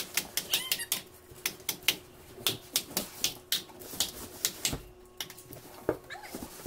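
Interlocking wooden deck tiles clicking and clattering as they are handled and fitted together: a rapid, irregular run of sharp clicks and knocks, a few each second.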